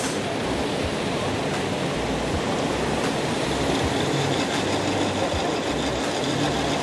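Rain-swollen, muddy Swat River rushing over rocks in a steady, loud wash of noise.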